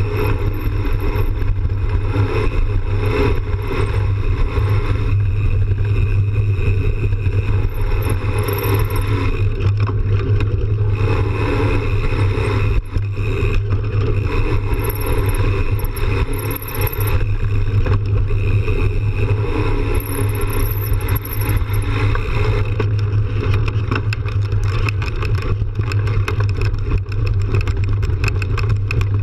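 Mountain bike rolling fast over a dirt trail: a loud, steady low rumble of wind and tyre noise on a camera mounted by the front wheel, with frequent clattering knocks from the bike over bumps.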